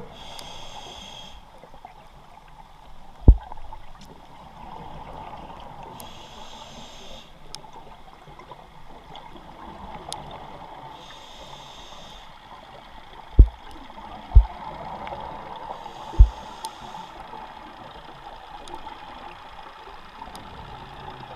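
Goliath grouper barking: four short, deep booms, one about three seconds in and three more close together later on. Between them, a diver's exhaled bubbles hiss in bursts every few seconds.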